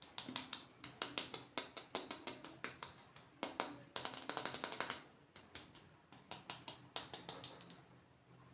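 Rapid, irregular clicking and tapping of hard plastic toy parts being handled, with a denser rattle about halfway through.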